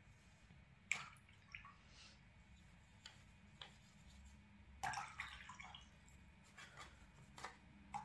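Near silence with a few faint, short clicks and taps, and a small cluster of them about five seconds in.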